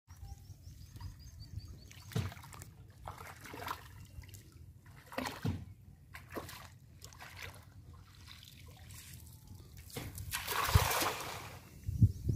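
Water sloshing and splashing in short bursts as a person wades in a shallow canal handling a cast net, then a longer, louder spray of splashing near the end as the thrown cast net lands on the water.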